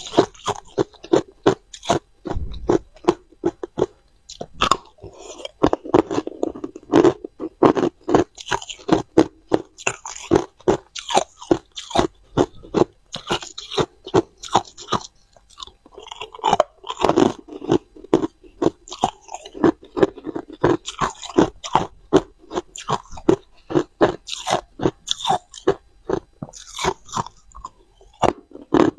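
A person biting and chewing hard, clear ice cubes: a rapid, irregular run of sharp cracks and crunches, close to a clip-on microphone.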